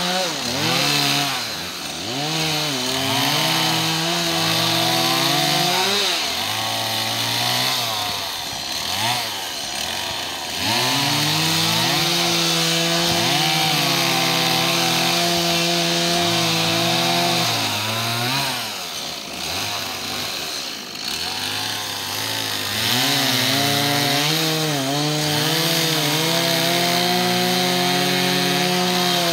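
Two-stroke chainsaw cutting through tree branches: held at full throttle in three long cuts of about six seconds each, the engine note dropping back and wavering between them.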